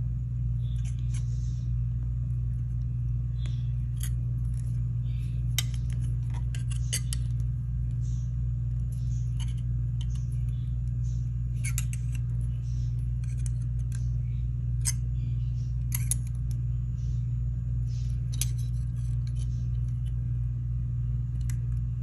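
Bail-making pliers clicking and clinking against a flatware spread-knife bracelet in scattered small metallic ticks as its end is bent into shape, over a steady low hum.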